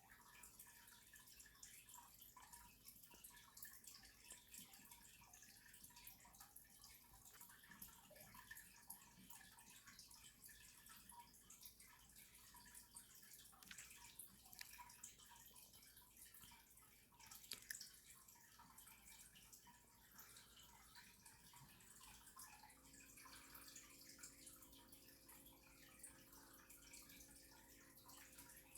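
Near silence: faint scattered ticks and small drip-like sounds in a quiet room, with a faint steady hum coming in about three-quarters of the way through.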